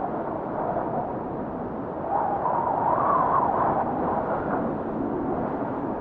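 Blizzard wind blowing steadily, with a moaning tone that wanders up and down in pitch and grows louder about two seconds in.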